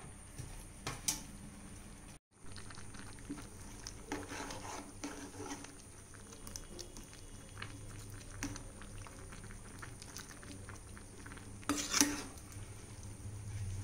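A steel spoon stirring wild mushrooms in a steel pot on the stove, with small clinks and scrapes of metal on metal over the mushrooms' released juices bubbling. A louder knock of the spoon against the pot comes about twelve seconds in.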